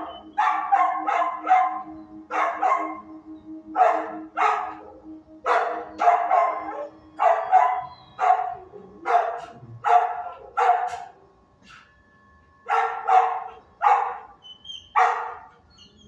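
Dog barking repeatedly in quick runs of two or three loud barks, with a short pause about twelve seconds in.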